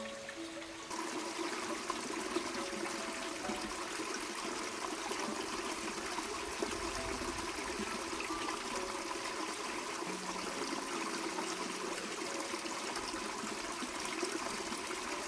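Water running steadily, coming in suddenly about a second in, with faint background music under it.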